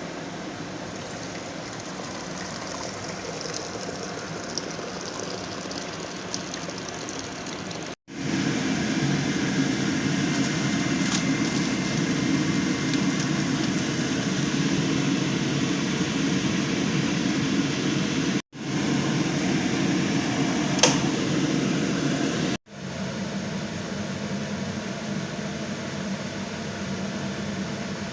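A steady mechanical whir with hiss that cuts off abruptly and comes back louder about eight seconds in, then cuts twice more later on. A short sharp tick sounds just before the last cut.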